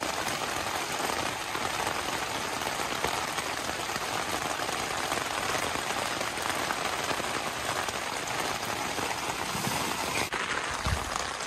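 Heavy rain falling on a tarped-over tent, heard from inside the tent: a dense, steady patter of drops on the fabric.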